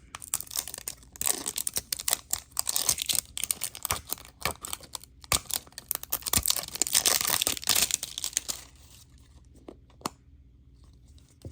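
Blind-box toy packaging being torn open and crinkled by hand: a dense run of tearing, rustling and sharp crackles that dies down about three seconds before the end.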